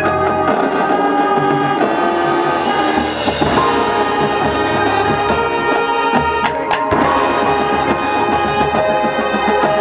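High school marching band playing its field show: brass and woodwinds sounding held chords over front-ensemble percussion, with a sharp crash about two-thirds of the way through.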